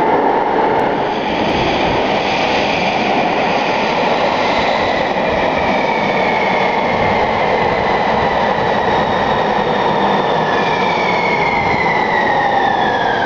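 San Diego Trolley light-rail train running into an underground station: a steady rumble of wheels on rails. Over the last few seconds a whine falls in pitch as the train slows.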